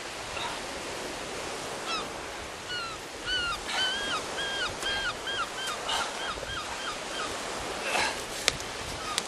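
A gull calling a long series of yelping notes, the notes getting shorter and quicker as it goes, over a steady hiss of surf and wind. A few brief crunches of shingle break in, the sharpest near the end.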